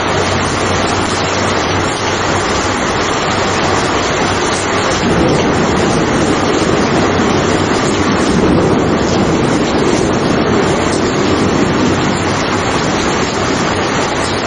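Steady heavy rain, with a low rumble of thunder swelling in about five seconds in and fading away a few seconds before the end.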